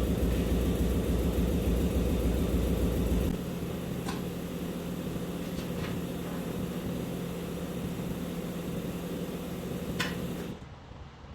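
A machine runs steadily with a low hum. It drops in level about three seconds in and cuts off near the end, with a few light clicks in between.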